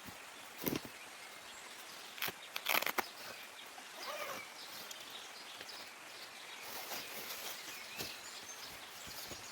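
Outdoor ambience with a steady hiss, broken by a few sharp clicks or knocks, with a faint short call about four seconds in.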